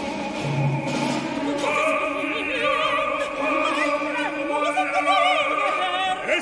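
Opera: a soprano singing with wide vibrato over sustained orchestral chords.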